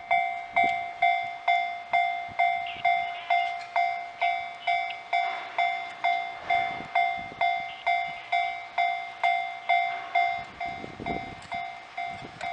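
Japanese railway level-crossing warning bell ringing: an electronic ding of one fixed pitch repeating steadily about twice a second. A low rumbling noise joins under the bell near the end.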